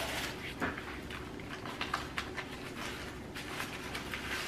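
Faint handling noises as a shoe is fetched and picked up: scattered light clicks and rustling over a steady low room hum.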